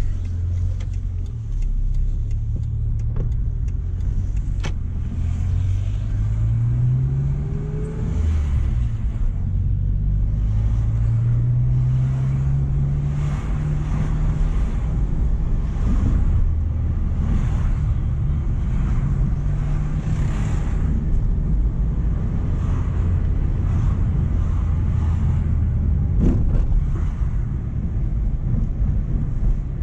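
Renault Clio's D7F 1.2-litre eight-valve petrol engine, heard from inside the cabin while driving. The engine note rises twice as the car accelerates through the gears, then holds steady under road noise.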